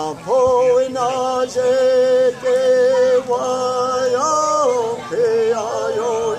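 A man singing a Mohawk song unaccompanied, in long held notes at one steady pitch, with a brief rise to a higher note a little past the middle before dropping back.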